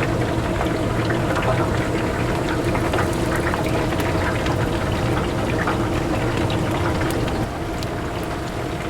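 Chicken deep-frying in a vat of oil, a dense sizzling crackle over a steady machine hum. The sound drops a little about seven seconds in.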